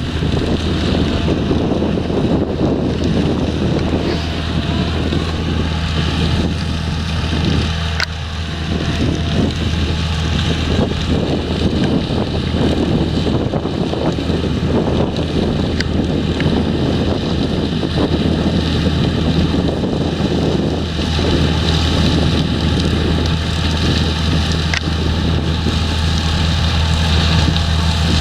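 Potato harvesting machinery running steadily, a constant deep engine drone with wind buffeting the microphone.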